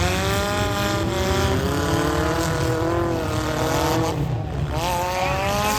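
Demolition derby car engines revving hard, their pitch rising and falling over a steady low rumble, with a fresh rising rev near the end.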